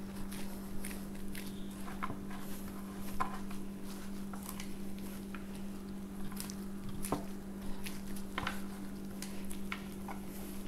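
Gloved hands squeezing and kneading warm mashed green plantain with grated cheese into balls: soft squishing and crackling of the disposable gloves and dough, with scattered small clicks. A steady low hum runs underneath.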